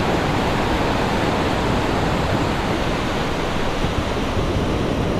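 Ocean surf breaking and washing up the beach, a steady rushing noise.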